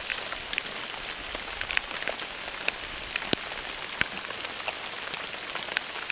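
Steady rain falling, a continuous hiss dotted with sharp, irregular ticks of individual drops striking close by.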